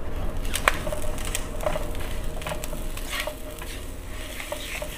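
A spatula stirring and scraping diced shiitake mushrooms and dried shrimp around a nonstick wok, with a light sizzle of frying under it. A series of short scrapes and taps, the sharpest about two-thirds of a second in.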